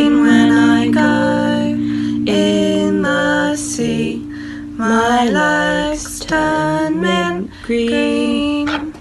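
Female vocals singing a slow song over an electric guitar, the sung notes held and gliding between pitches.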